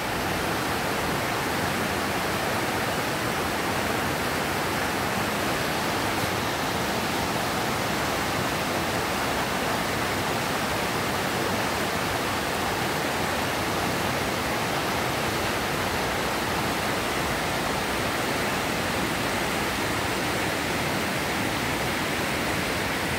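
A swollen river rushing over rocks in whitewater rapids, a steady, unbroken rush of water. The river is running high after a storm.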